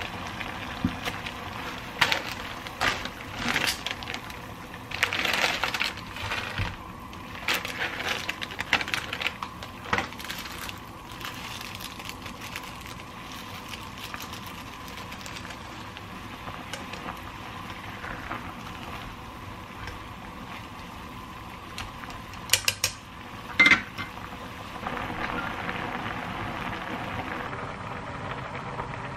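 Instant-noodle cooking: a pot of water at a rolling boil as the noodle block goes in, with a run of crinkly rustling and clicks from the noodle and seasoning packets being torn and squeezed. Later come two sharp clicks of cookware.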